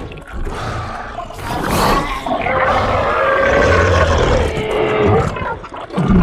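King Ghidorah's roar from the 2019 Godzilla film: one long, wavering call over a low rumble.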